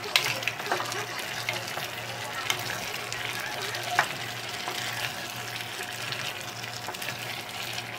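Chunks of chicken, potato and vegetables being stirred in a pot of curry, sizzling steadily, with a few sharp knocks of the utensil against the pot, the loudest about four seconds in.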